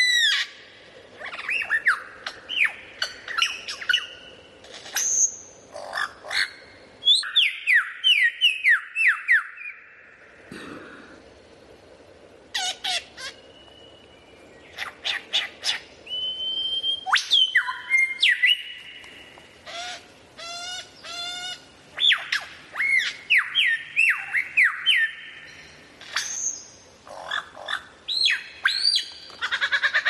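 Songbird singing: a varied run of whistled phrases, up-and-down glides and quick trills, in short bursts with brief pauses between them.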